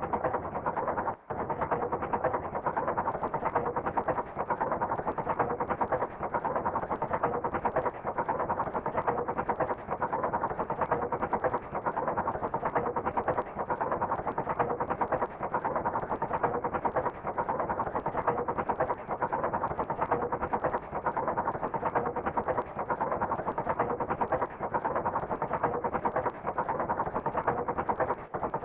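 A dense, steady crackling noise with a faint hum beneath it, from a projection-mapping show's sound design. It starts abruptly and fades out near the end.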